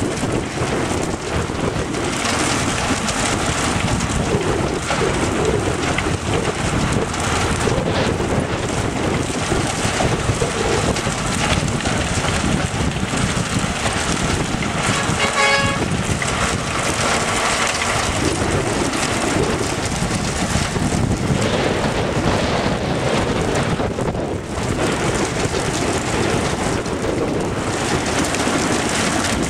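Mobile sand washing and screening plant running: a steady, dense rushing noise from the machinery and from water pouring out of its discharge pipes. A short tone sounds briefly about halfway through.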